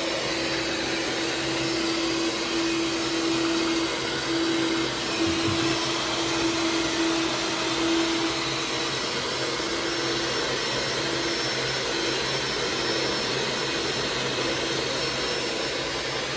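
White electric stand mixer (a hand mixer on its bowl stand) running steadily, beaters churning cookie dough, with an even motor whine.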